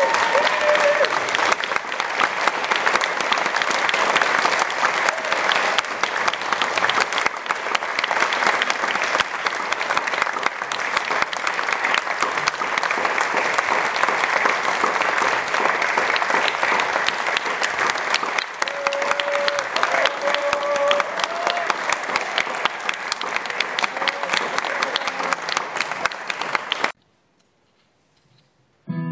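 Audience applause: many people clapping steadily, cutting off suddenly near the end.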